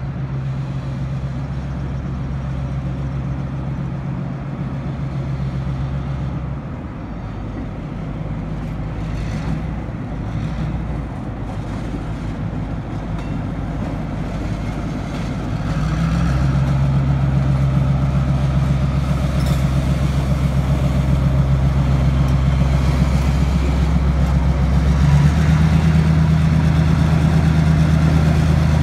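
Diesel engines of two Richmond Pacific Railroad end-cab switcher locomotives running steadily as they move slowly past, a low steady engine hum. They get louder about halfway through as the units draw close.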